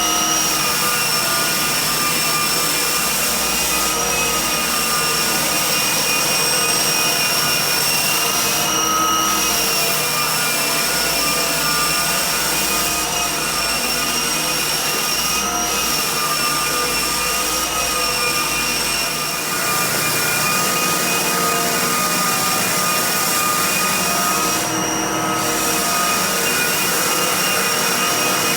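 Floor-refinishing machine running steadily, its motor giving a high, even whine over a loud rushing hiss.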